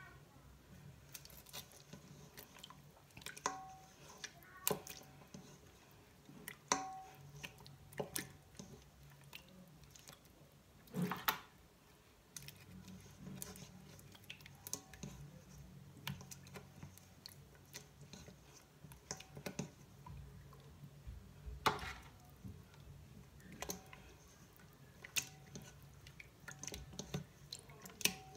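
Raw pork chops being handled in marinade in a stainless steel bowl: faint wet squishing as they are pressed and turned, with scattered light clicks and knocks against the bowl, a few louder than the rest.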